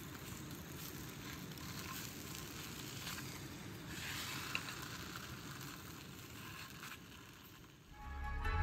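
Sausages sizzling steadily in a frying pan over a portable gas canister stove. Near the end the sizzling drops away and music fades in.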